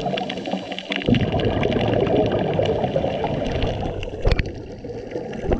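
Scuba diver's exhaled bubbles gurgling from the regulator, muffled through an underwater camera housing, with a sharp click about four seconds in.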